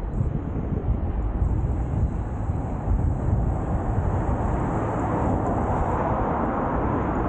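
City street ambience: steady traffic noise that swells over the second half, with wind rumbling on the microphone.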